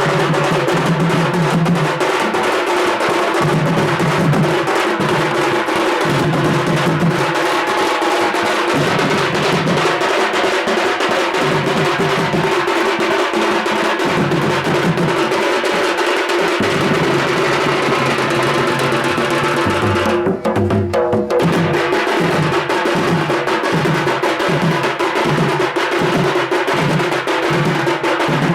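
Loud drum-heavy music with a steady beat and a sustained drone, ending in a regular pulse of about two beats a second.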